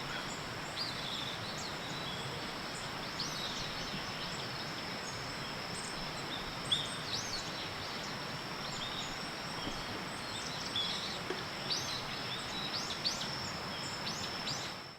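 Outdoor ambience: small birds chirping on and off, with short high calls scattered throughout, over a steady high-pitched hum and a soft background hiss.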